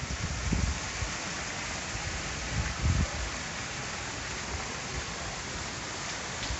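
Steady hiss of rain outdoors, with a few short low thumps on the microphone.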